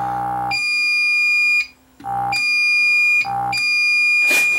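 APC uninterruptible power supply failing on a worn-out battery. Its inverter hums under the light-bulb load, then its alarm buzzer sounds three high beeps of about a second each, with the hum briefly returning between them. A short noisy burst comes near the end as the output drops out.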